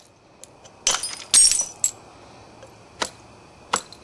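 Knapping tool striking the edge of a Florida coral preform: a run of sharp stone clicks, about five in four seconds. The loudest come between one and two seconds in, one with a brief glassy ring.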